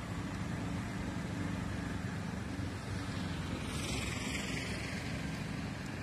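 Steady rumble of city traffic rising from the streets below, with a brief hiss of a passing vehicle about halfway through.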